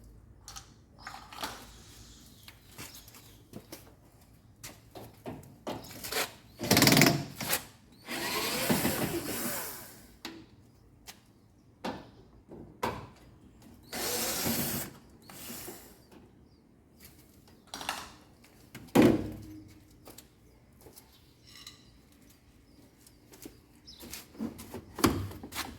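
A power screwdriver runs in two spells, about eight and fourteen seconds in, as the screws holding a washing machine's top cover come out. Clicks and knocks of handling the cabinet and tools come in between.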